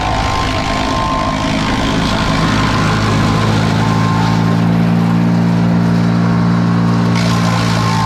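Vermeer wood chipper's engine running steadily with a low, even drone, growing a little louder and heavier in the middle as small branches are fed through and chipped.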